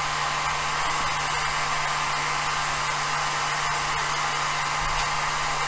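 Steady whir and hiss of a small electric fan, with a low hum underneath, unchanging throughout.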